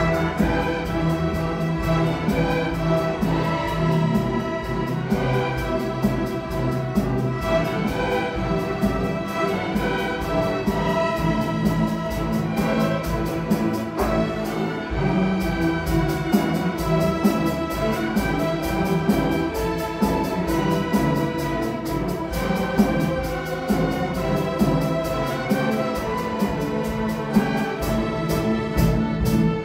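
Student symphony orchestra playing a classical piece, with bowed strings to the fore and sustained notes at a steady level.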